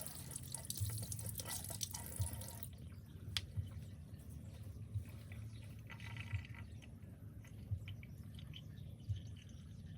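Water running into a kitchen sink during hand dishwashing, cutting off a little under three seconds in, followed by scattered drips and small clicks.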